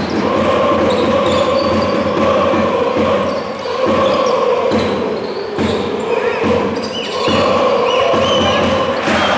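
A large crowd of basketball supporters chanting in unison, singing long held lines with short breaks between them.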